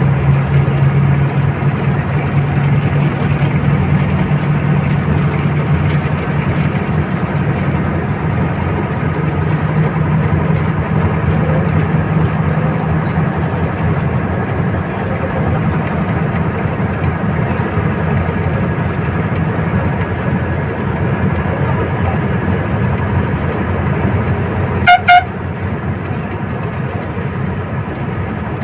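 Old Tata bus's diesel engine running steadily at highway speed, its low drone heavier in the first half. Near the end a horn gives two short, loud blasts.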